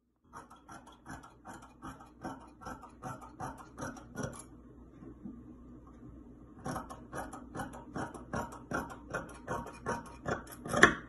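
Fabric scissors snipping through stretchy lightweight fabric in a steady rhythm of about three snips a second. Two runs of snips with a pause of about two seconds between them, and a louder click near the end.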